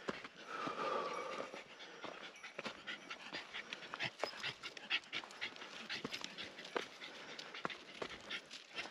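Shiba Inu dog panting hard on a hot uphill climb, with many short crunching footstep clicks throughout and a brief louder tonal sound about half a second in.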